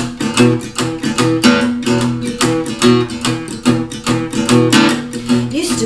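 Sunburst acoustic guitar strummed in a steady, even rhythm, chords changing, with no voice over it.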